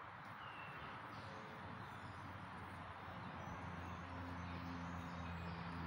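Open-air background with a few faint bird chirps. A low, steady motor hum comes in about halfway through and grows louder.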